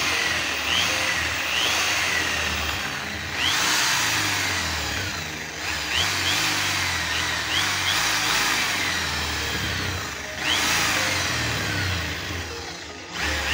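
Handheld electric drill running as its metal bit bores through the thin steel wall of an aerosol spray can. The motor cuts out briefly and starts up again twice, about three seconds in and about ten seconds in.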